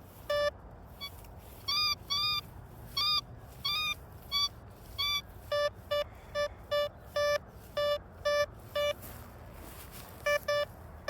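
Detech Chaser metal detector beeping in short tones, about two a second, as the coil is swept back and forth over a buried target that reads around 65 to 70. The beeps are higher-pitched in the first half and lower-pitched from about halfway, with a short pause near the end.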